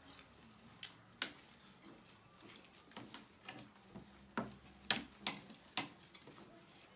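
Spoons and forks clinking and scraping against ceramic dinner plates as several people eat, in about eight irregular sharp clicks, the loudest in the second half.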